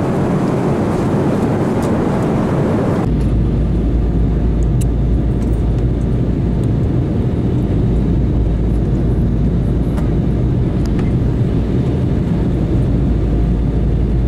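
Steady in-flight cabin noise of a jet airliner: the even rush of air and engine. About three seconds in it changes abruptly to a deeper rumble with a faint steady hum, as heard beside the window.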